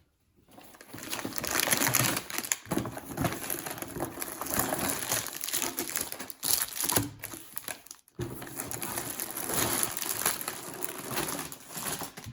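Plastic packaging crinkling and rustling as a LEGO set is handled and unpacked, with many small clicks. It stops briefly about eight seconds in.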